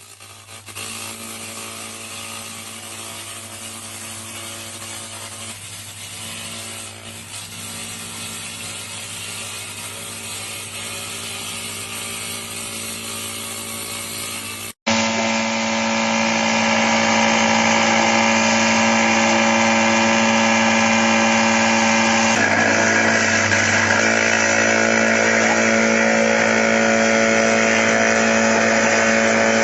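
CNC milling machine running, its spindle giving a steady whine over cutting noise. It breaks off abruptly about halfway and comes back louder.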